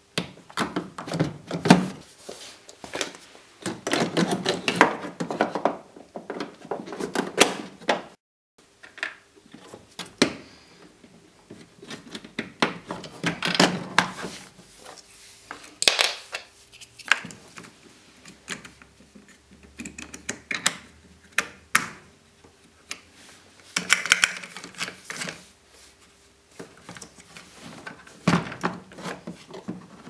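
Hard plastic parts of a Siemens tumble dryer's drain pump assembly and hoses being handled, with irregular clicking, knocking and scraping.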